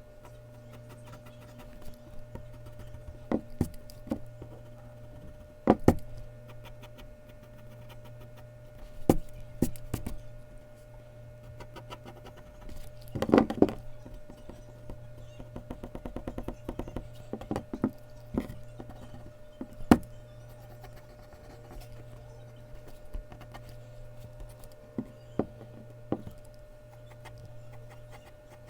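Mechanical pencil drawing on Bristol paper: scattered taps and knocks with scratchy strokes, and a dense run of quick strokes about halfway through, over a steady low hum.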